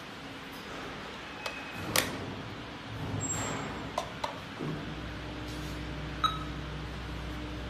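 Several sharp clicks and short electronic tones from alarm equipment being handled. About halfway through a steady low electrical hum starts, and a short electronic beep sounds once near the end.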